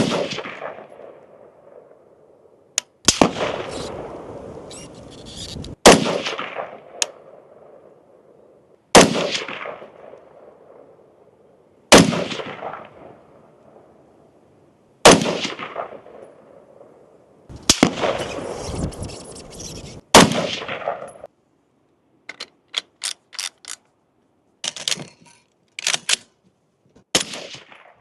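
Single shots from a CZ Bren 2 rifle firing 5.56 M193 unsuppressed, heard at the shooter's ear: about eight loud cracks spaced roughly three seconds apart, each ringing out. In the last few seconds comes a run of shorter, sharper cracks in quick clusters, with silent gaps between them.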